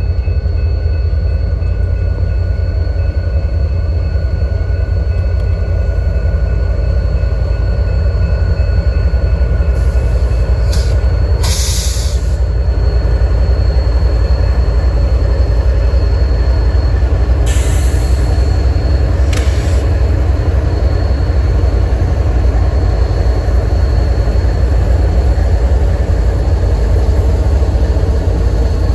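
Freight train cars rolling by with a steady heavy rumble and faint high wheel squeal, with two short hissing bursts, about 11 and 17 seconds in.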